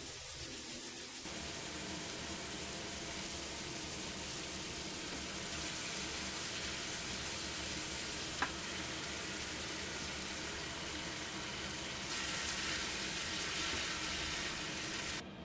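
Chopped napa cabbage, lettuce and ground meat sizzling as they stir-fry in a deep pan, stirred with a spatula. There is one sharp tap about halfway through, as soy sauce is poured in from a spoon, and the sizzling grows louder near the end.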